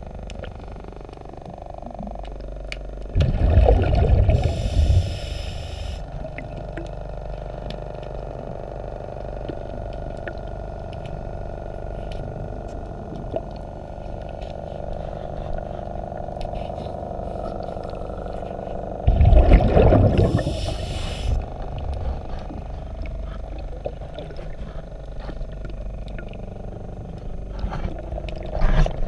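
Underwater sound of a diver breathing through a regulator: loud gurgling bursts of exhaled bubbles about three seconds in and again about nineteen seconds in, with another starting at the very end. A steady low hum runs in between.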